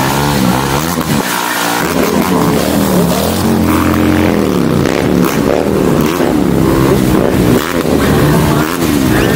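Motorcycle engines revving again and again, the pitch rising and falling every second or two.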